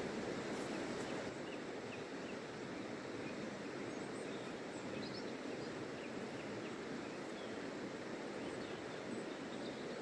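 Steady rushing of river water, with a few faint, short bird chirps scattered over it.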